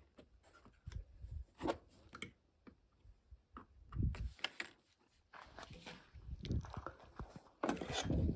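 Irregular knocks, clicks and rubbing of hands and tools handling car door parts, with a louder cluster of knocks near the end.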